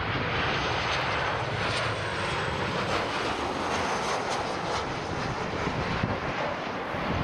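Boeing 737-800 jet engines passing low and close on final approach, a steady rush of engine noise.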